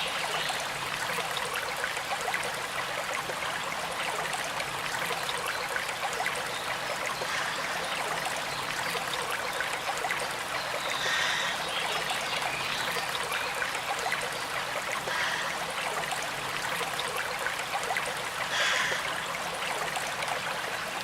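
River water flowing, a steady rushing and trickling with small splashes, briefly louder about halfway through and again near the end.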